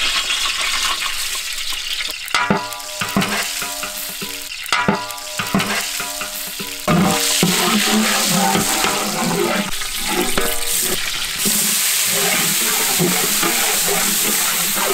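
Whole spices frying in hot oil in a cooking pot, a steady sizzle with a metal spoon stirring and scraping the pan. The sizzle gets louder about seven seconds in.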